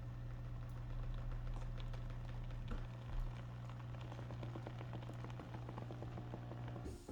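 TruMedic Symphony massage chair running with a steady low buzz and a rapid, irregular clicking on top of it. The buzz cuts off just before the end.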